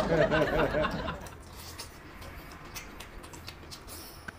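A person's voice for about the first second, then faint eating sounds: chewing and slurping noodles, with a few light clicks of chopsticks.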